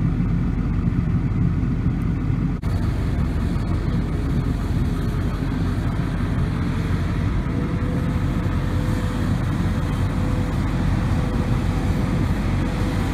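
Steady low engine rumble heard from inside a vehicle's cab, with a brief dropout about two and a half seconds in. A faint whine joins it about seven seconds in, rising slightly and then holding.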